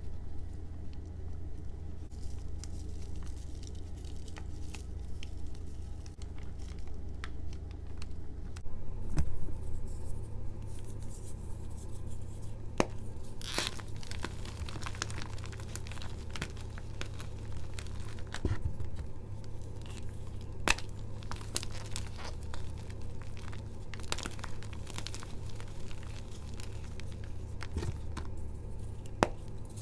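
Hands squeezing and crumbling soft blocks of gym chalk topped with starch and holi powder: dry, crumbly crunching and crackling, dense from about nine seconds in, over a steady low hum.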